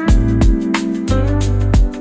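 Background music: a guitar-led track with a steady drum beat and bass.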